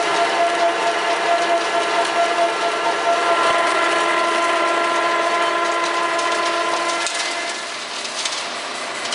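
Large Lodge & Shipley engine lathe running, its geared headstock giving a steady whine of several held tones over a mechanical rush. About seven seconds in the tones drop away and the sound becomes quieter and rougher.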